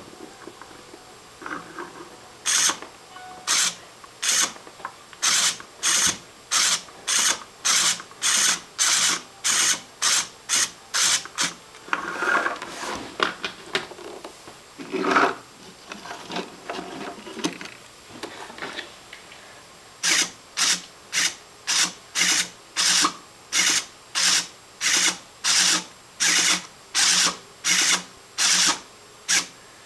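LEGO Mindstorms turret's motor and gear train running in short rasping bursts, about two a second. It stops for several seconds midway, leaving fainter irregular rattling, then starts again.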